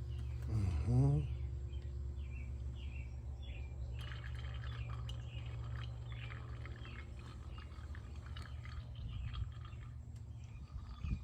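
2022 Subaru WRX's turbocharged 2.4-litre flat-four engine running at low speed, with a brief rise in engine pitch about a second in.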